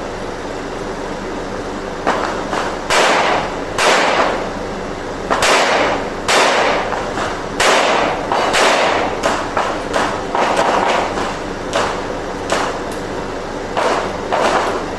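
Revolver gunshots fired in a competition string: a dozen or so sharp shots at uneven intervals of about a second, each with a short echo.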